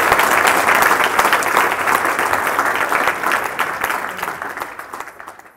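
Audience applauding, tailing off near the end.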